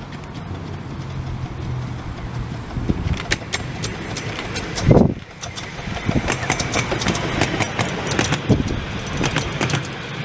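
Miniature steam locomotive hauling passenger cars as it approaches and passes close by. It starts as a low, steady rumble, then wheels click over the rail joints. There is one loud thump about five seconds in as the engine goes past.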